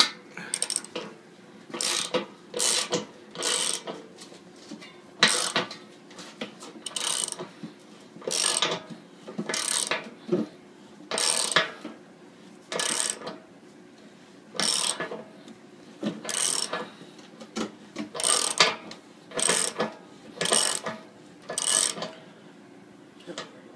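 Socket ratchet wrench clicking in short bursts, one about every second and a half, as it is swung back and forth to tighten a bolt.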